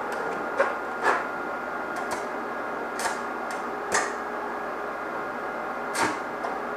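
Stick-welding arc from a 3/32 6011 rod on a small inverter welder: an uneven crackle broken by about five sharp pops. This rod is hard to light and run on this machine.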